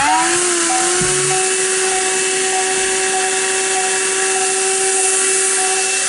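Hikeren 12-volt handheld car vacuum switched on: its motor whine rises quickly as it comes up to speed, then holds steady over the rush of air through the nozzle.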